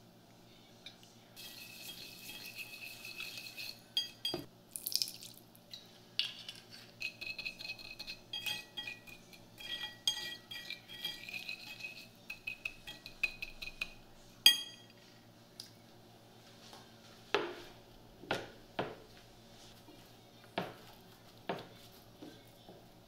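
Fork whisking a marinade in a ceramic bowl: quick, dense clinking and scraping with the bowl ringing, for about twelve seconds, ending with one sharp clink. After that come a few separate knocks and rustles.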